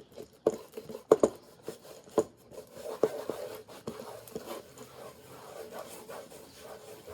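A towel wiping and scrubbing an old box camera with soapy water, a steady rubbing, with a few sharp knocks and clicks of the camera being handled in the first two seconds, the loudest a little after one second in.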